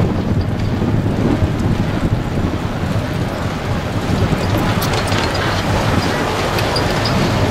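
Wind buffeting the microphone: a steady, loud, rumbling rush.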